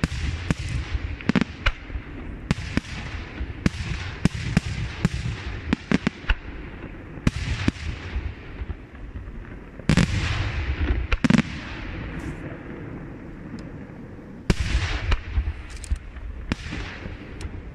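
Aerial firework shells from a Luigi Di Matteo Fireworks display bursting in quick succession, several bangs a second at times, each fading into an echo. The heaviest bursts come about ten seconds in and again near fifteen seconds.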